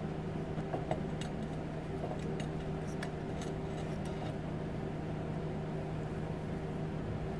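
Steady low machine hum, like a fan or other small motor, with a few faint clicks and taps from a hand working on a metal engine mount.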